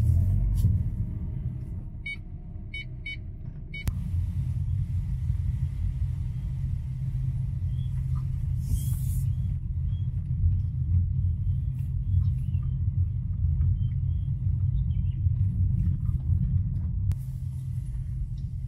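Ford Freestyle car driving down a steep, rough unpaved road, with a steady low rumble of engine and tyres. A few short high pips sound a couple of seconds in.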